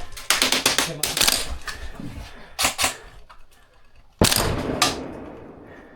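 Airsoft guns firing: a quick burst of sharp shots in the first second, then a few single shots. About four seconds in comes one loud bang that rings on and fades over nearly two seconds.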